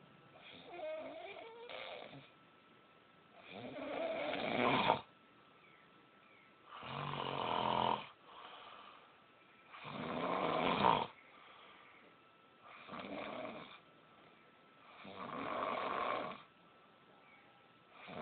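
Heavy snoring: about six rasping snores, each a second or so long, coming every two and a half to three seconds, with quieter breathing between them.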